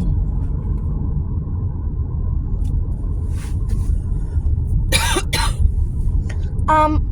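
Steady low road rumble of a car driving, heard from inside the cabin, with two quick coughs about five seconds in.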